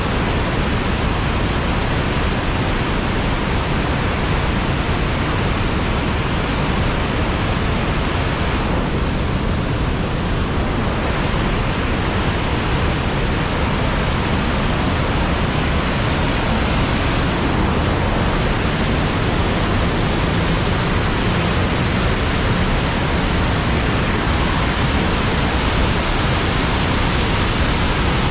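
Iguazu Falls, a huge waterfall system, pouring down: a loud, steady rushing noise of falling water.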